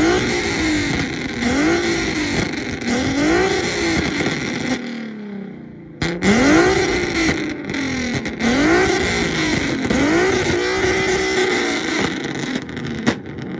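Infiniti car engine with an aftermarket exhaust revved hard over and over, the revs climbing and dropping back about once a second, with a short break about five seconds in.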